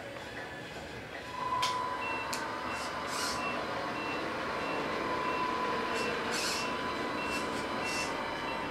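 Electronic truck sound from the RC tractor-trailer's ss-tronix sound system, playing an engine running and a reversing beeper at about two beeps a second as the truck backs up. Short hisses come through now and then.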